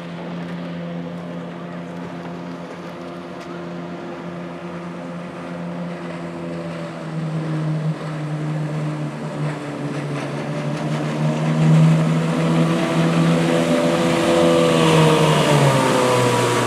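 Mercury 1250 125 hp inline-six outboard driving a boat at speed, a steady engine tone that grows louder as the boat comes closer and drops in pitch near the end. The motor is running much better after its new wiring harness, fuel lines and fuel pump internals.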